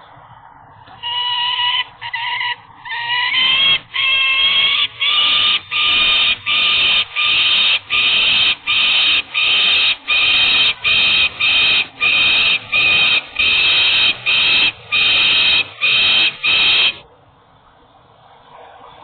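Peregrine falcon giving a long series of loud, harsh calls, roughly one a second, beginning about a second in and stopping shortly before the end; the first few calls rise in pitch.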